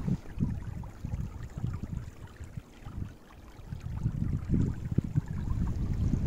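Wind buffeting the microphone in irregular gusts, a low rumble that eases off briefly about three seconds in.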